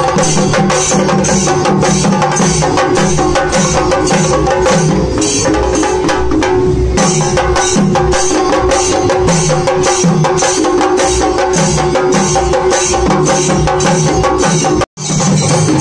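Ensemble of Kerala chenda drums beaten with sticks in a fast, dense, continuous rhythm. The sound cuts out for a split second near the end, then the drumming resumes.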